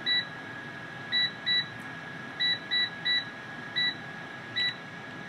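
Tower air fryer oven's touch-control panel beeping with each button press as the cooking time is set: eight short, identical beeps at uneven intervals, over a steady high whine.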